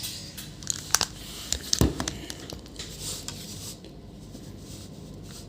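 Multimeter probe tips clicking and scraping against components on a laptop motherboard, with a few sharp taps around one and two seconds in, then fainter scratching.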